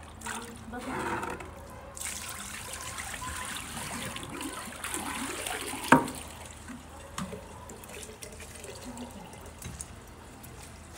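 Water running, starting abruptly about two seconds in and easing off after several seconds, with one sharp knock partway through.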